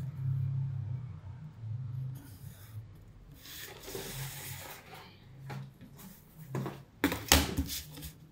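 Paper and cardboard rubbing and sliding on a work table, then a few sharp clacks and scrapes as a plastic set square is laid down and shifted on the cardboard, loudest near the end. A low steady hum runs underneath for the first couple of seconds.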